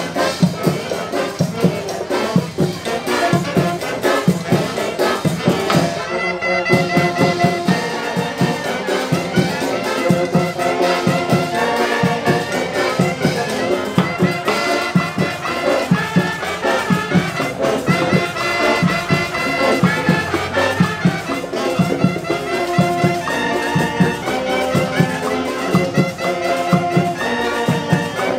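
Brass band playing a lively tune with a steady beat.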